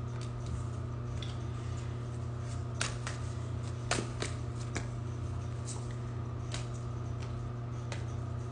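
A deck of reading cards being handled and shuffled: scattered soft clicks and snaps of cards, over a steady low hum.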